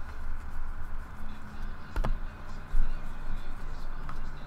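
Trading cards being handled and flipped through in the hands, with a sharp click about two seconds in and a few lighter ticks, over a steady low hum.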